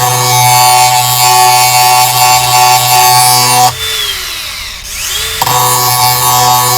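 Angle grinder grinding the cutting edge of a steel lawnmower blade, a steady high whine with a harsh hiss. About halfway through it is let off the blade and its pitch drops as it winds down, then it spins back up and grinding resumes.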